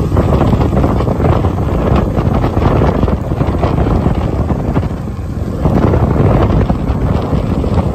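Royal Enfield motorcycle under way: engine running under road noise, with heavy wind buffeting on the microphone.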